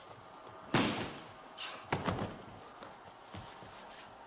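Bodies and hands hitting a training mat as aikido partners are thrown and take breakfalls: a loud slap about a second in, a quick double slap near two seconds, then a few lighter thuds.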